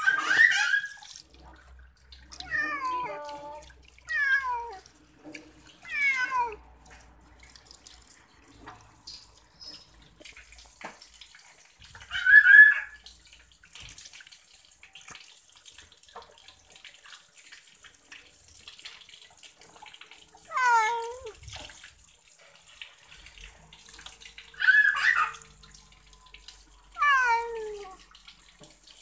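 Domestic cat meowing about eight times while it is bathed, each meow falling in pitch, over the faint hiss of water running from a hose into a stainless steel sink.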